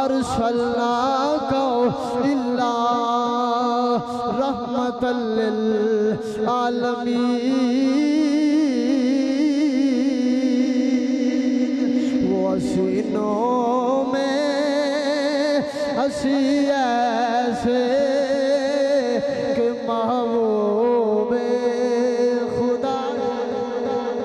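Devotional chanting: a voice sings a long melodic line with heavy wavering ornaments over a steady held low note.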